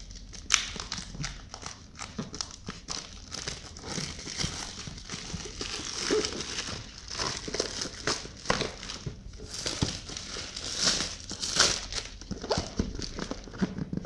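Clear plastic shrink-wrap being peeled and crumpled by hand off a cardboard power-supply box: irregular crinkling and crackling in fits and starts, loudest about half a second in and again near the end.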